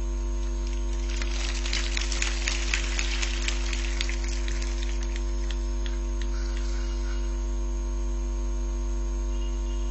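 Steady electrical mains hum on the sound system's recording, with a stack of fixed tones above the low drone. A run of faint crackles and clicks comes through about one to five seconds in.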